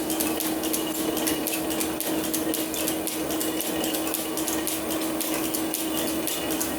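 Metal planer taking a cut across a steel bar: a steady machine hum under a rapid, irregular metallic clicking and clinking as the tool peels chips off the steel.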